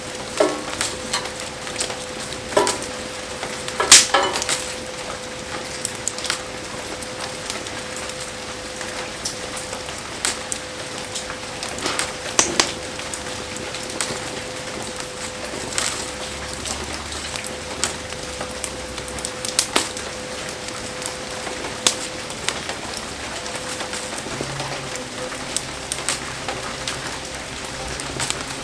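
Wood bonfire crackling and popping under heavy rain, with a steady patter of rain and sizzling throughout. Sharp pops come irregularly, the loudest about four seconds in.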